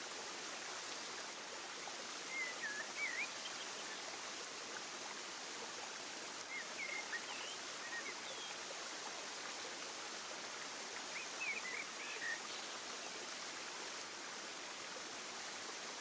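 Steady rush of flowing water, like a stream. Three brief clusters of quick high chirps come over it: near the start, in the middle, and about three-quarters through.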